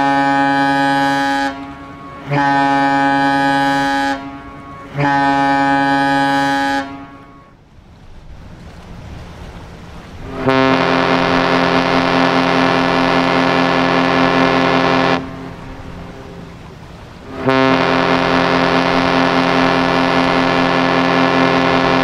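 Cruise ship horns. First the MS Europa sounds three steady blasts of about a second and a half each. Then Explorer of the Seas sounds two long blasts of about five seconds each, starting about ten seconds in.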